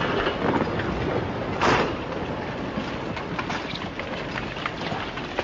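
Landslide coming down a wooded hillside: a steady rumble of moving earth and debris, full of small cracks and snaps, with one loud crash about a second and a half in.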